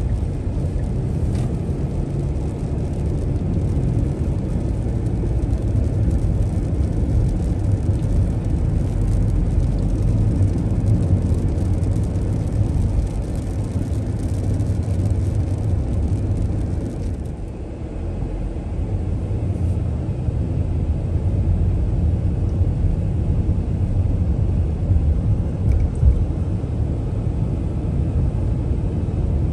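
Car driving on a rain-wet road, heard from inside the cabin: a steady low rumble of engine and tyres, easing off briefly a little past halfway.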